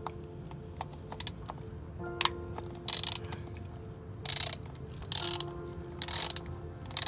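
Hand ratchet wrench clicking in several short bursts as its socket and extension undo the bolts of an automatic transmission oil pan.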